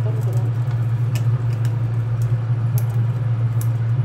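Steady low hum of a running kitchen appliance, with a few light knocks of a wooden spoon and meat pieces against a pot of broth.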